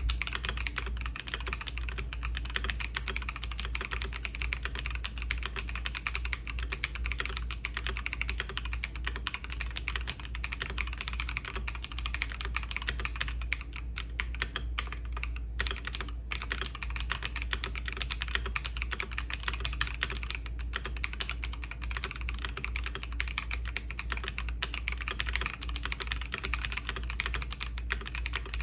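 Fast, continuous typing on a stock AKKO 5075S mechanical keyboard with AKKO CS White Wine switches: a dense clatter of keystrokes, with a couple of brief pauses near the middle.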